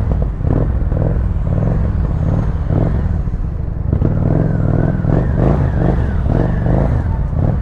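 Motorcycle engine rumbling at idle and low speed while crawling through a traffic jam, with other traffic around it. A wavering higher whine joins about four seconds in.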